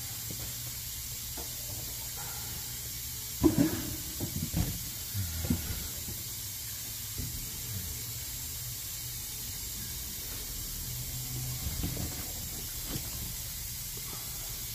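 Steady background hiss with one sharp knock about three and a half seconds in, followed by several lighter knocks over the next two seconds and a few faint ones later: tools and parts being handled and set down during engine work.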